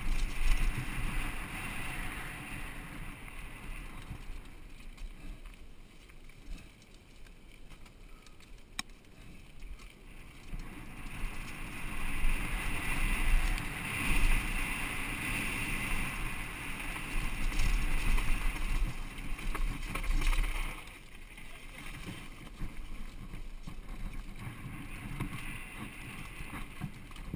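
Giant Glory downhill mountain bike descending a dirt trail: wind buffeting the helmet-camera microphone over the rattle of the bike and its tyres on loose dirt. The noise swells and turns harsher for about ten seconds in the middle, then eases.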